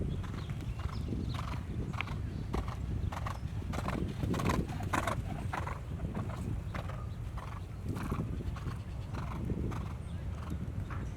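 Horse's hoofbeats, many irregular strikes as a horse is ridden, over a steady low rumble.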